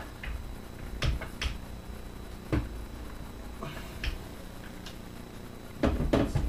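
Scattered sharp clicks and knocks of the metal parts of a stripped airsoft AK being handled, with a quicker run of knocks near the end, as the barrel assembly is worked but will not slide out.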